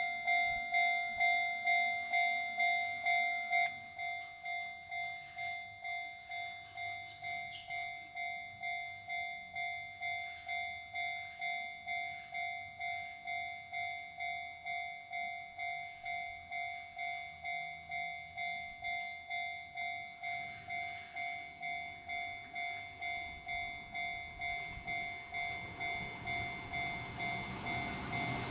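Railway level crossing alarm sounding the Chichibu Railway's own warning tone, a steady ding about twice a second that turns quieter about four seconds in. Near the end the rising rumble of an approaching train comes in under it.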